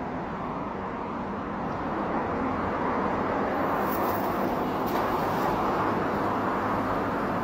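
Steady outdoor background noise, with a faint swish and splash about four to five seconds in as a thrown cast net lands on the water.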